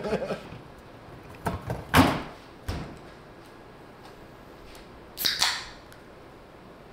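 A few sharp knocks and taps, the loudest about two seconds in, then a short rustling swish about five seconds in, as a length of copper-nickel brake line tubing is handled and bent by hand.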